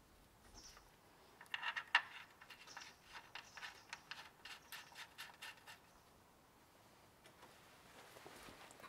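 Faint scratching and light clicking of caps being turned by hand into the access holes of an engine's timing case, a quick run of small scrapes and ticks that dies away after about six seconds.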